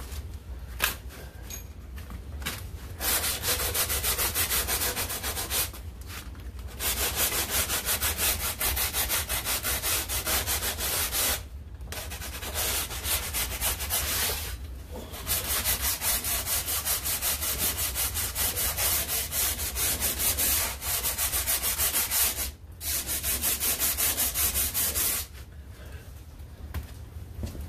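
Sandpaper rubbed by hand across the front edge of a C5 Corvette's composite front fender to sand it flat. It goes in rapid back-and-forth strokes, in about five bouts with short pauses between them.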